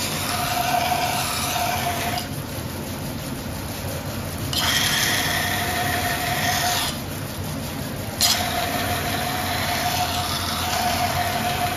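Kaiten wet grinder's 36-inch carborundum wheel turning with a steady low hum. Three times a hiss with a high ring cuts in and out abruptly, the sound of steel pressed to the turning stone and lifted off.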